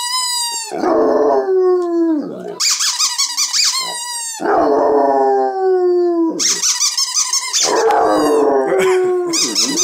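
Basset hound howling: three long, loud calls in a row, each starting high and sliding down in pitch.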